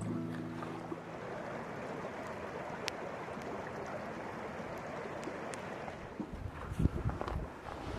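Steady rush of water, with wind buffeting the microphone briefly near the end.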